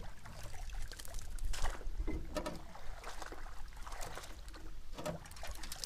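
Handling noise in a small boat: a string of irregular knocks and rustles with some water splashing, over a steady low rumble.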